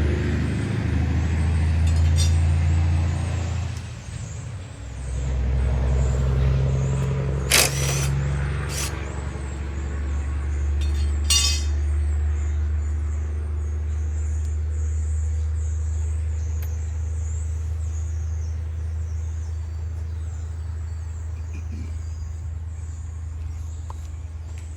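An engine running steadily, easing off briefly about four seconds in and then picking back up, with a couple of sharp knocks partway through.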